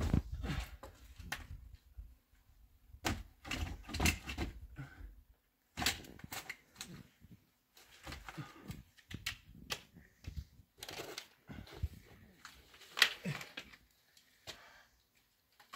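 Irregular clicks and knocks, some in quick clusters and others single, with short quiet gaps between them.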